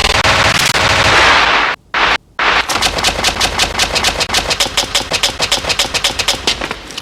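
Sustained automatic gunfire from a film soundtrack. A dense burst is broken by two brief abrupt cuts to silence, then a long run of rapid, evenly spaced shots, about nine a second, that stops suddenly.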